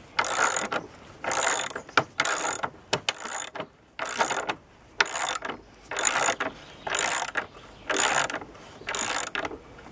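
Socket ratchet wrench tightening a coach bolt, its pawl clicking in short runs on each back-swing of the handle, about once a second.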